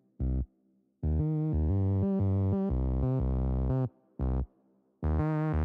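Background music on a synthesizer, playing sustained chords that cut off abruptly into short silences several times.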